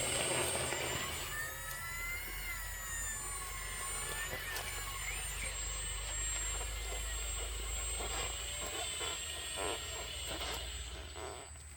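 Small electric drive motors of scale RC construction machines running, with a steady high whine, a few pitch glides and scattered light knocks.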